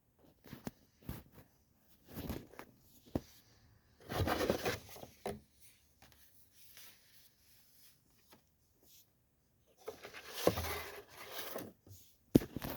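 Hands handling an airsoft gun and its packaging: scattered clicks and taps, with two longer bursts of rustling and scraping, about four seconds in and again about ten seconds in.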